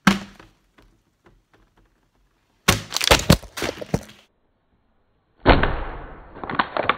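A plastic water bottle strikes hard on a tabletop, then about three seconds in a cluster of clattering knocks and thumps as thrown bottles hit the camera and knock it over. From about five and a half seconds in comes a further run of dull, muffled thumps.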